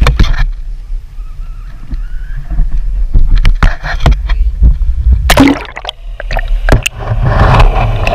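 Kayak-mounted action camera with water splashing and sloshing against the hull and the camera, sharp knocks and a low wind rumble on the microphone. About five seconds in the camera goes into the lake with a loud splash, and gurgling water follows near the end.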